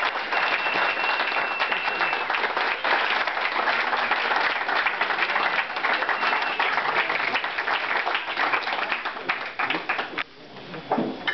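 Audience applauding, many hands clapping at once, with a high, steady whistle over it for about two seconds near the start. The clapping dies away about ten seconds in.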